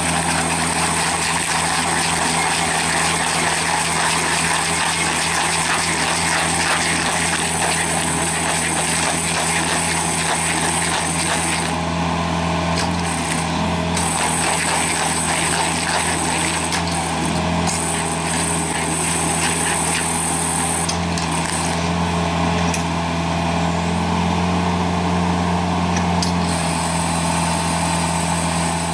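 A large machine engine running steadily under load, with a continuous high whine that drops out briefly a few times.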